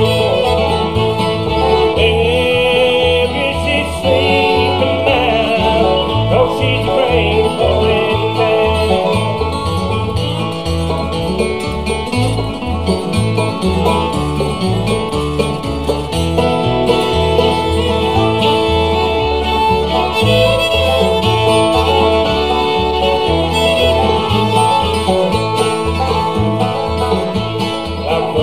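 Bluegrass band playing an instrumental passage: fiddle, banjo, acoustic guitar and bass guitar together over a steady bass rhythm, with no singing.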